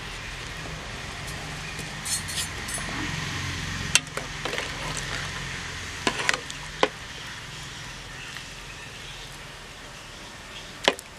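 A steel spoon clinks sharply against the rim and side of a steel cooking pot a few times as a whole cauliflower is turned in hot turmeric water: once about four seconds in, twice a few seconds later, and once near the end. A steady hiss runs underneath.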